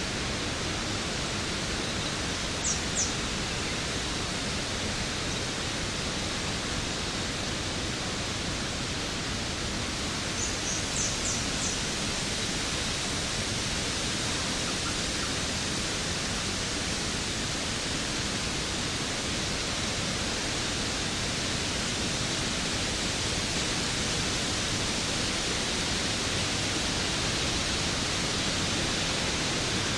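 Waterfall rushing steadily, an even roar of falling water. Twice a few brief high chirps sound over it: a pair near the start and a quick run of four about a third of the way in.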